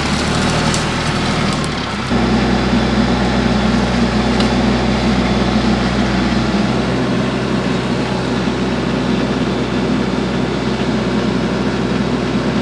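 Compact tractor's diesel engine running. About two seconds in it steps up to a louder, heavier, steady note, as it would under throttle or hydraulic load while the tree shear is worked.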